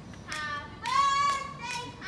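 A high voice singing a melody, with sharp hand claps keeping time.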